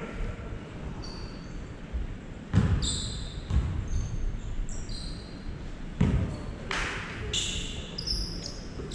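Basketball game on a hardwood gym floor: a few thuds of the ball bouncing and short, high squeaks of sneakers, in an echoing hall.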